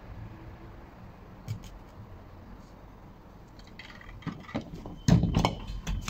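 Handling of a refrigerator compressor: a few light clicks and knocks from about four seconds in, then a heavy thump and clatter near the end as the compressor is set down on a table.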